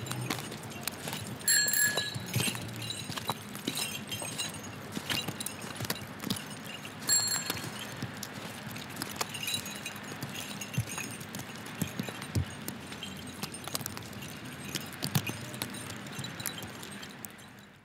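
Small goat and cow bells jingling with each step, ringing out most clearly twice, over the taps of footsteps and a walking cane.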